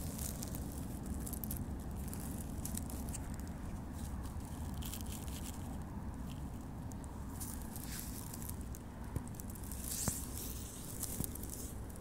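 Dry pine needles and twigs rustling and crackling as someone moves over the forest floor, with a sharper crack near the end, over a low steady rumble on the microphone.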